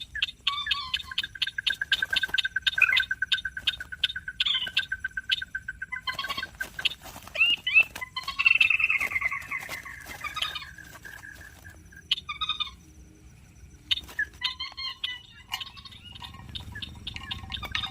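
Rice-field waterbirds calling: a long rapid trill on one steady pitch for about five seconds, then a falling, rattling call and scattered short sharp notes.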